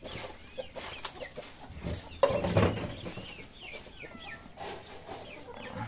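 A flock of free-range chickens clucking, mixed with many short high chirps, with one louder call a little over two seconds in.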